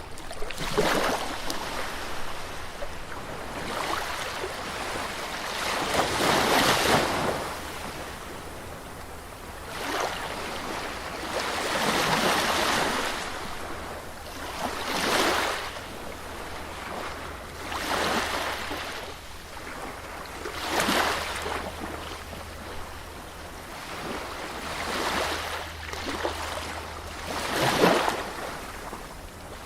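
Sea waves washing onto a beach, one after another. Each wave swells into a hissing surge and falls away every two to four seconds, and the loudest wave breaks near the end.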